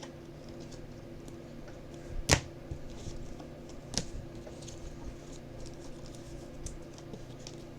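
Trading-card packs and cards being handled on a table: faint scattered clicks, a sharp knock a little over two seconds in and a smaller one about four seconds in, over a steady low hum.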